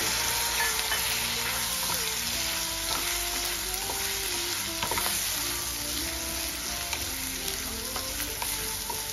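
Chicken liver masala sizzling in a steel kadhai, with a little water just added, while a wooden spatula stirs and scrapes through it against the pan in irregular strokes.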